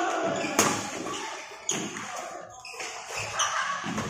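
Badminton rackets striking a shuttlecock in a doubles rally: three sharp smacks about a second apart, each ringing briefly in a large hall.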